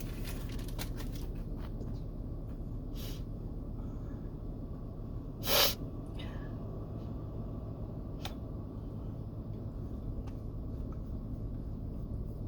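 Steady low room hum with a few faint light clicks. About halfway through comes one short, sharp burst of breath through the nose, between sneezes of a sneezing fit.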